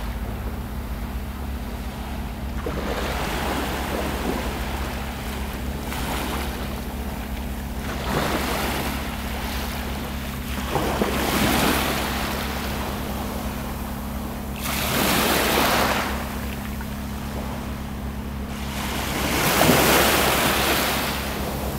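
Small sea waves breaking and washing up the shore: four louder surges a few seconds apart over a steady wash of surf.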